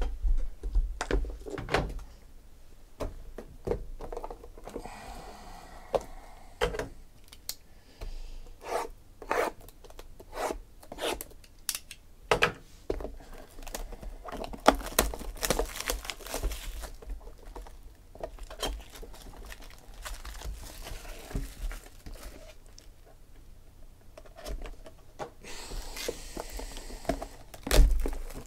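Sealed 2016 Panini Gala football card boxes and packs being handled: a string of cardboard knocks and taps on the table, with crinkling and tearing of plastic shrink wrap as a box is unwrapped, loudest near the end.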